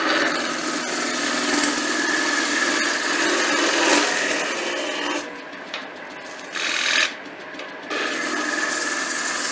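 A skew chisel cuts a spinning softwood coffee table leg on a wood lathe, planing it down to a round cylinder at full diameter. It makes a steady cutting noise that stops briefly about five seconds in, comes back for a moment near seven seconds, pauses again, then runs steadily from about eight seconds on.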